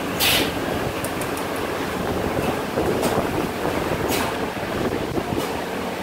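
Factory machinery on a filter-element assembly line running with a steady mechanical din, with two short sharp hisses of air, one just after the start and one about four seconds in.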